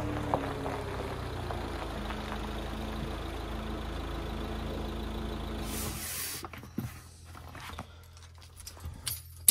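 Fiat Ducato van's diesel engine running at low revs while the van is manoeuvred into a parking space; the engine sound stops suddenly about six seconds in. After that, a few faint knocks.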